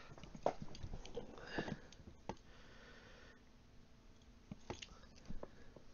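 Faint clicks and light handling noises of small monster pin-back buttons being sorted in the hands.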